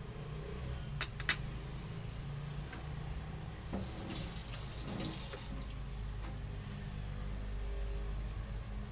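Pork cubes in water heating in a wok on a cooktop, over a steady low hum and a thin high whine. Two sharp clicks of a wooden spatula against the pan come about a second in, and a short watery hiss rises about four seconds in.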